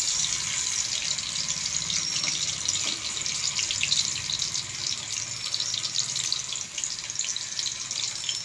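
Potato slices frying in hot oil in a pan: a steady sizzle full of small crackles.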